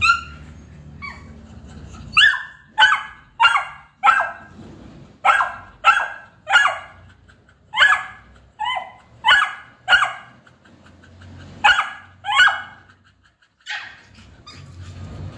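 Beagle puppy barking: a string of about fifteen short barks in quick runs of two to four, with brief pauses between the runs.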